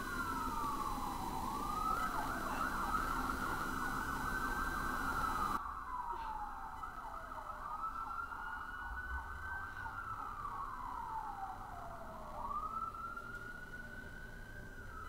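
A siren wailing, its pitch rising and falling slowly about every five seconds.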